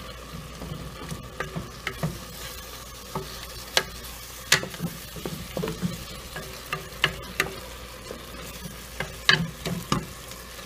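Wooden spoon stirring and turning cooked zucchini, corn and cheese in a metal pot on the stove, with irregular sharp knocks of the spoon against the pot over a faint sizzle.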